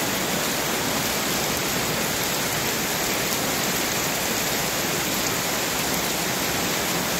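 Heavy rain falling steadily on gravel and paving: an even, loud hiss that holds without change.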